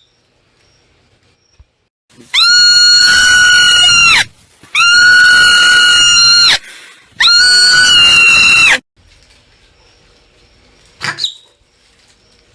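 Marmot screaming its alarm call three times in a row, each a loud, high, steady scream about two seconds long, followed by one short sharp call near the end.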